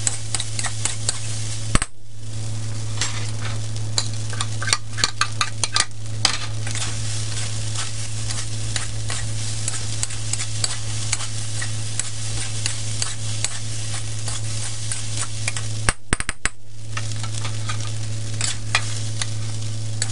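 Metal wok spatula scraping and clacking against a steel wok as rice is stir-fried, over a steady sizzle of frying. The clacks come in quick clusters.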